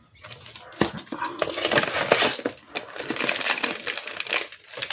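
Crinkling and rustling of a plastic sleeve of clear stamps as it is picked up and handled. It starts about a quarter of a second in and carries on as a dense crackle of small clicks.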